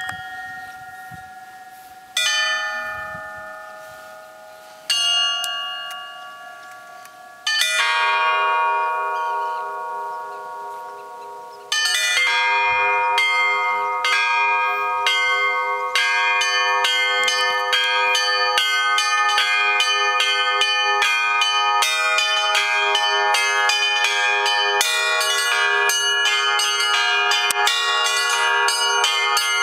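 Russian Orthodox bells of the Kizhi belfry being rung: four single strokes a few seconds apart, each left to ring out and die away, then from about twelve seconds in a continuous peal of many bells struck rapidly together over a steady repeated low bell.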